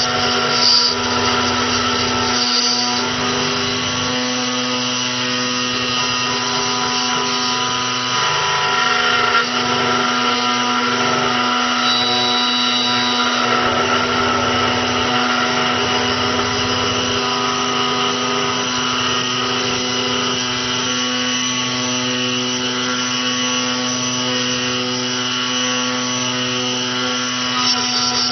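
SEC-E9 CNC key cutting machine running, its spindle and cutter milling the notches of a double-sided car key blade: a steady, loud machine hum with a high whine over it. Heard close up, it comes across as a bit noisy.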